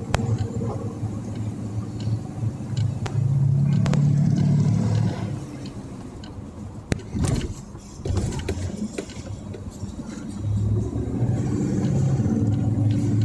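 Vehicle engine and road noise heard from inside the cabin while driving, a steady low drone that swells for a couple of seconds about three seconds in and again near the end. A few sharp knocks or rattles come about seven seconds in, where the drone is quieter.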